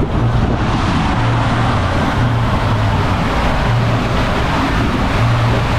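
Steady loud rush of water and wind on the microphone as a raft slides down the AquaMouse water-coaster tube.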